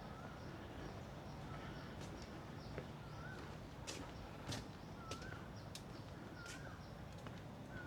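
A bird repeating a short, wavering call about every second and a half over a low outdoor background, with sharp clicks now and then.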